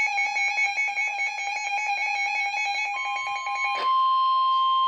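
Weather alert radio's electronic alarm sounding as a rapidly pulsing beep. About four seconds in there is a click and it gives way to one steady, single-pitch tone: the weather radio warning alarm tone that signals an emergency warning message is about to be broadcast.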